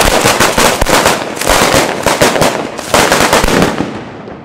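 Firecrackers going off on the ground in a fast, continuous run of sharp cracks and bangs, with a fresh loud surge about three seconds in, then dying away near the end.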